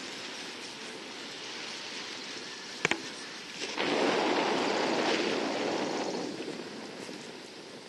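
Car driving along a road: steady road and wind noise, with a single click about three seconds in and a louder rush of noise from about four seconds in that fades after about six seconds.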